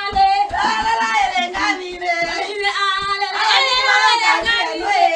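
Women singing together in full voice, with a steady beat of short strokes underneath.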